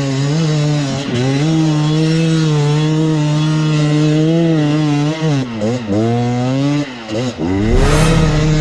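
Enduro dirt bike engine held at high revs under load on a steep hill climb. The revs drop and pick up again twice, about six and seven seconds in, and a short burst of hiss comes near the end.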